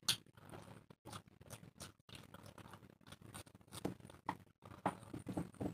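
Faint hand-eating sounds: scattered soft clicks and smacks of chewing and of fingers mixing rice and egg curry, in no steady rhythm.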